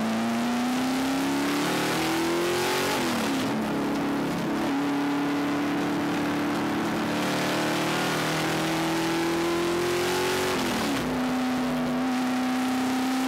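Race car engine running at speed, its pitch climbing slowly. The pitch drops sharply and recovers twice, about three seconds in and about eleven seconds in.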